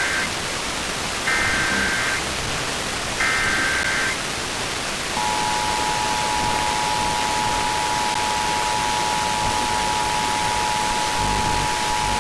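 Emergency Alert System broadcast received off-air over steady FM static hiss: the end of one Specific Area Message Encoding header data burst and then two more, each a short warbling digital screech about a second apart. Then, about five seconds in, the EAS two-tone attention signal starts and is held steady.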